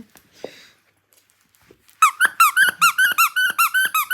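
Squeaky dog toy squeaked in a quick run of about seven squeaks a second, starting about halfway in, each squeak rising and falling in pitch.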